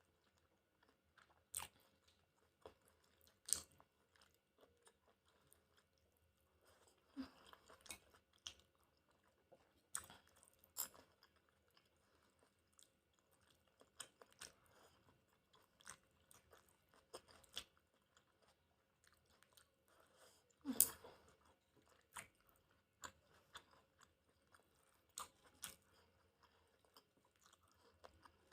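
Close-miked eating of chicken udon: quiet chewing with scattered sharp mouth clicks and smacks, plus a louder burst of eating noise about 21 seconds in.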